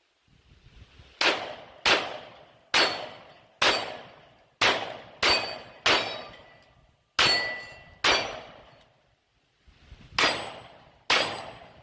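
Canik METE MC9 9mm pistol fired eleven times at an uneven pace, shots about half a second to two seconds apart, each crack followed by a short ringing tail.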